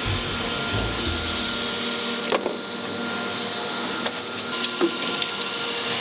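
Injection moulding machine and its take-out robot running with a steady hum, low thudding in the first second or so, then a few sharp clicks and knocks as the gripper handles the moulded plastic hair dryer housings.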